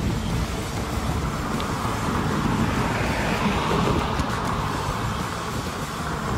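A car driving past on the road, its tyre and engine noise swelling to a peak and fading away, over a steady low rumble.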